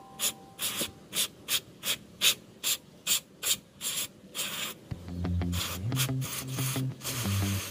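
Short repeated squirts from an aerosol cleaner can through a straw nozzle onto a throttle body, about two to three a second, with one longer spray around four seconds in. Background music comes in about five seconds in.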